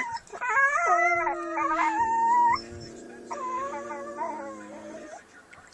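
Dogs howling and whining in play: long, high-pitched, wavering cries that bend up and down in pitch. From about two seconds in, a steadier, lower held tone runs under them for about three seconds, and the cries grow quieter near the end.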